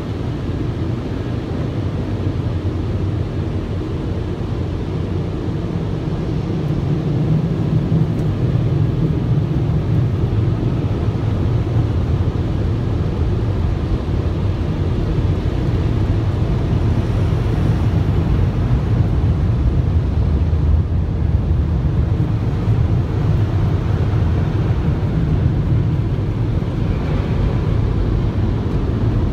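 Car wash air dryer blowers running as a steady, loud noise, heard from inside the car's cabin, getting a little louder several seconds in.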